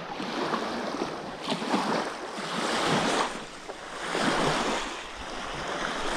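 Small wind-driven waves lapping and washing onto a sandy lake shore, swelling and ebbing every second or two.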